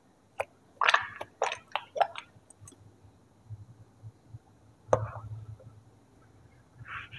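Stretchy rubber hamburger squeeze toy squelching as hands squeeze and pull it: a run of short squishes in the first two seconds, then one sharp knock about five seconds in.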